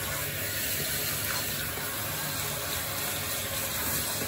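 Handheld shower head running steadily, its spray held close against a small dog's wet coat in a bathtub, which keeps the spray quieter than an open stream.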